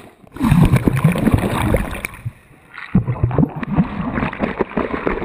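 Sea water sloshing and gurgling close against a camera dipped in and out of the surface, in irregular surges. It goes quieter a little past two seconds in, then the churning picks up again.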